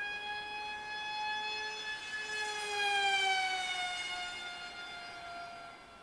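Electric pusher motor and propeller of a Z84 flying wing whining, heard from the onboard camera. The pitch holds and rises slightly, is loudest about three seconds in, then falls and fades over the last few seconds as the motor slows.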